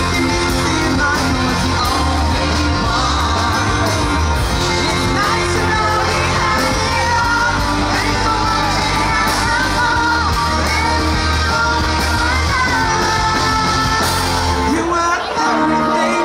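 Live rock band playing with a male lead singer on a handheld microphone, electric guitar and bass. The bass drops out near the end.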